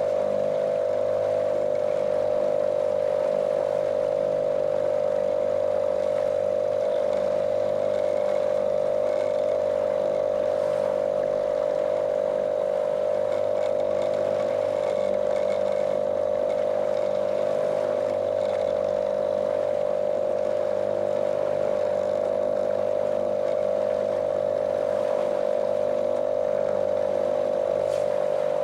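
Small motorboat's outboard motor running at a steady cruising speed, a monotonous drone with a strong mid-pitched tone, over the hiss of water rushing past the hull.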